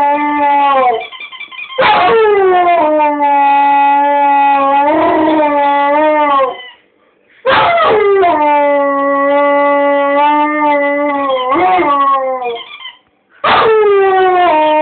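Dog howling: three long howls, each dropping quickly in pitch and then held steady for several seconds with a wavering near its end, with short pauses between them.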